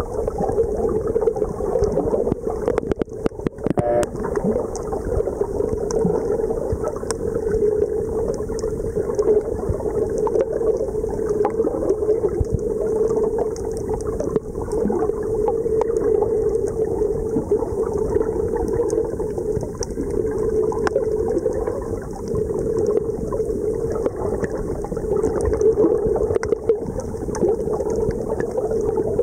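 Muffled underwater sound picked up by a submerged camera: a steady rush of water with a constant hum, and a short run of clicks about three to four seconds in.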